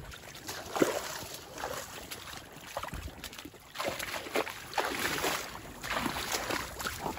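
Feet wading and splashing through shallow muddy creek water, irregular sloshes that get louder about four seconds in.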